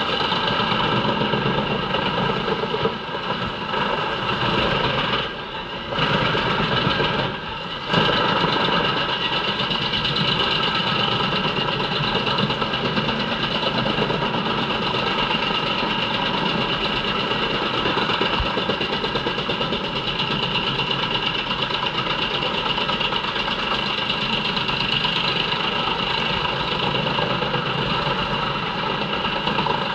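JENZ HEM 593-R truck-mounted drum chipper running under load, chipping poplar logs fed in by its crane while chips blow out of the discharge spout. It is a steady, loud mechanical din, with a few brief dips in level in the first eight seconds.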